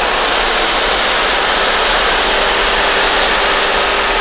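Loud, steady rushing noise of a moving vehicle, with a faint steady hum underneath.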